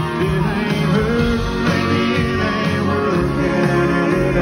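Live country-rock band playing an instrumental break, with electric guitar, bass and drums under a lead melody line that slides and bends in pitch.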